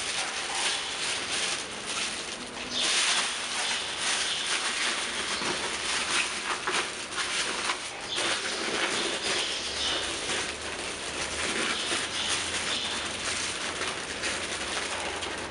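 Large air-filled clear plastic bags crinkling and rustling as they are handled and squeezed, a dense irregular crackle of plastic film.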